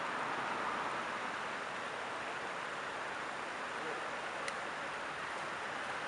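Creek water running over a shallow rock ledge and riffle, a steady even rush of water. A single small click about four and a half seconds in.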